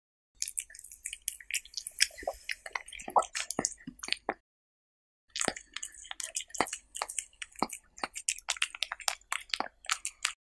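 A cat eating raw meat strips, close-miked: wet chewing with quick smacking clicks, in two stretches broken by a short pause a little before halfway.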